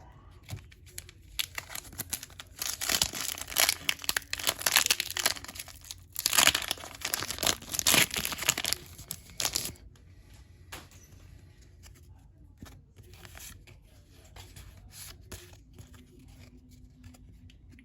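A Pokémon card pack being torn open, its wrapper crinkling and tearing for several seconds, then softer scattered clicks of the cards being handled.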